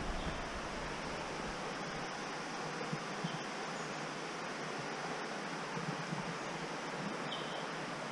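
Shallow creek water running over rounded stones, a steady even hiss.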